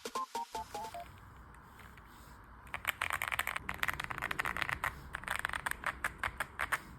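A short music phrase ends about a second in. After a brief pause comes fast typing on a mechanical keyboard fitted with Akko Creamy Purple tactile switches, a dense run of many keystrokes a second.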